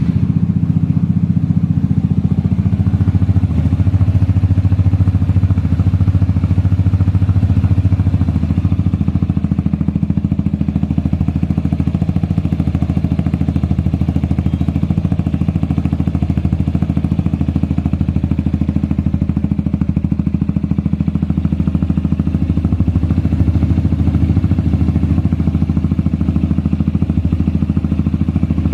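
Yamaha XMAX 250 scooter's single-cylinder four-stroke engine idling steadily through an aftermarket exhaust, just after being started. It gets a little louder about three and a half seconds in, then holds a steady idle with no revving.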